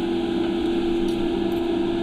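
TIG welding of a stainless-steel exhaust pipe under argon purge: a steady electrical hum with an even hiss.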